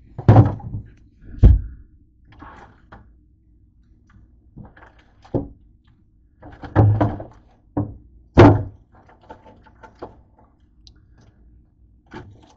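Things being handled and set down in an open refrigerator: a string of thunks and knocks on its shelves, the loudest about half a second in, at about a second and a half, and near the middle, with a small pile of ketchup packets being added to a glass shelf.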